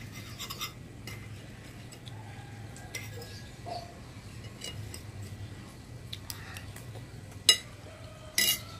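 Metal cutlery clinking and scraping against an amber glass bowl of rice and fried egg, in scattered light taps, with a sharp louder knock near the end followed by a short louder clatter.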